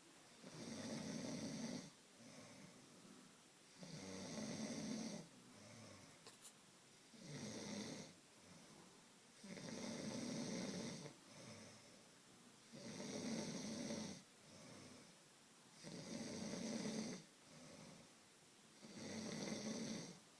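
A sleeping man snoring: seven loud snores at a steady rhythm, about one every three seconds, with a softer breath between each.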